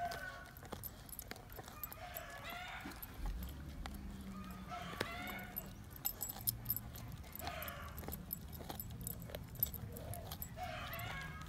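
Dog tearing and chewing raw meat off bones, with many small clicks of teeth on meat and bone and a light jangle from its collar tag. An animal call, like a hen's cluck, repeats about every two and a half seconds over the chewing.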